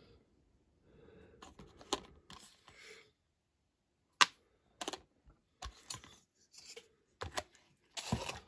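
Scattered small clicks and taps of tools and small parts being handled on a hobby workbench, with one sharp click about four seconds in and a busier run of clicking and rustling near the end.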